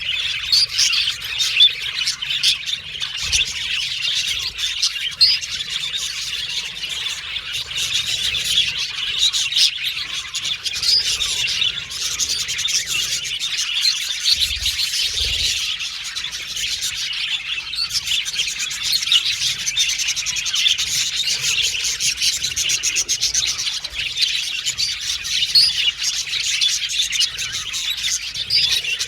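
A flock of budgerigars chirping and warbling together in a continuous, busy chatter.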